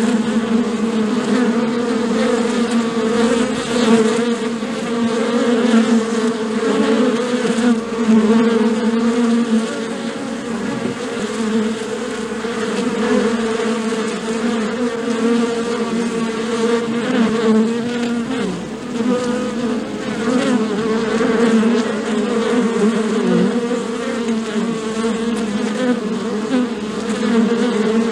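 Bees buzzing: a steady wing-beat hum whose pitch wavers slightly.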